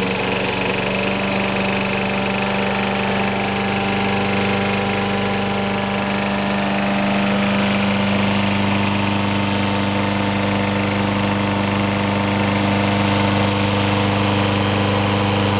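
Craftsman lawn mower's 6.75 HP Briggs and Stratton engine running steadily, with its low hum growing stronger about halfway through. The sound cuts off suddenly at the end.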